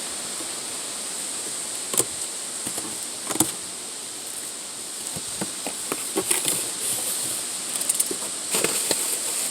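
Steady high-pitched insect chorus, with scattered sharp clicks and taps of things being handled, clustered about two and three and a half seconds in and again in the second half.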